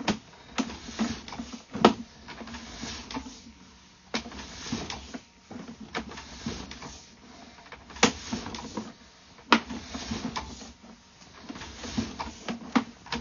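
Sewer inspection camera's push cable being pulled back and coiled onto its reel: irregular clicks and knocks over a low rumble, the loudest knocks about 2, 4, 8 and 9.5 seconds in.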